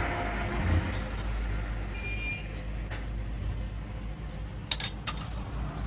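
Steady low hum in a metalworking shop, with a quick cluster of sharp metal clinks near the end.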